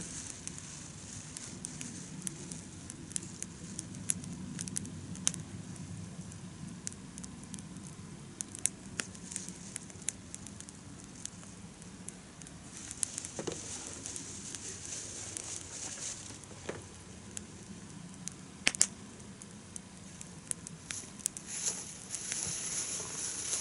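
Wood campfire crackling, with irregular sharp pops and snaps over a steady low hiss.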